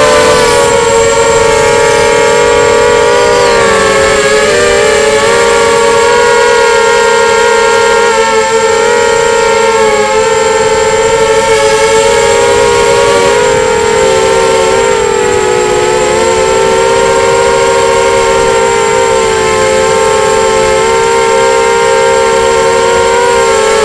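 Quadcopter's motors and propellers whining steadily, several close tones that waver slightly in pitch as the throttle shifts, heard very close from a camera mounted on the craft.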